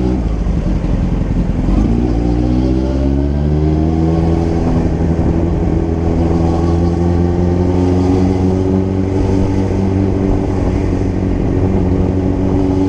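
Motorcycle engine pulling away, its pitch rising over the first few seconds, then running steadily at a near-constant speed.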